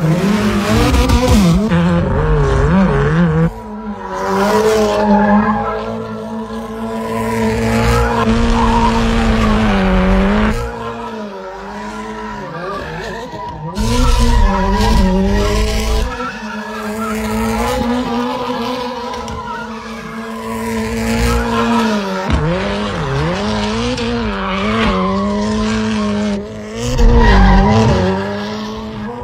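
Rally car engine revving up and down repeatedly while the tyres squeal and skid through drifts and donuts. The engine pitch climbs and drops again and again, and the loudness surges and falls as the car swings around.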